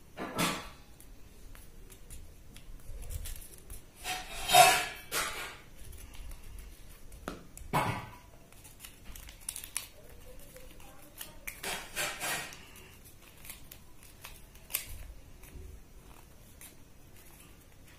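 Craft paper rustling and crinkling in the hands as it is glued and shaped, in a few irregular bursts with small clicks between them, the loudest about four and a half seconds in.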